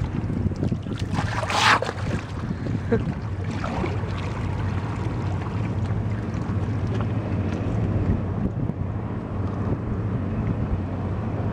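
Wind buffeting the microphone over a steady low engine hum from a boat on the water. A short, loud hissing burst comes about a second and a half in.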